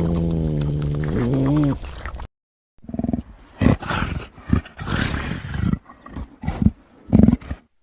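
Made-up creature sound effects for a fictional badger-like monster. A long, low, pitched call rises at its end and breaks off. After a brief silence comes a quick string of about eight short, rough calls.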